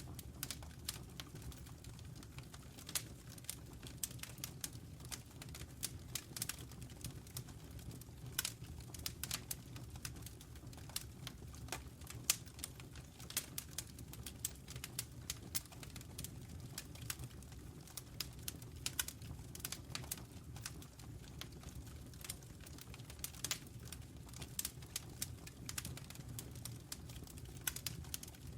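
Wood fire burning in a fireplace: irregular crackles and pops over a low, steady rumble of the flames.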